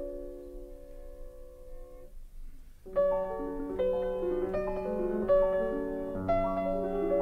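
Background piano music: a held chord dies away about two seconds in, and after a short pause a new phrase of notes begins.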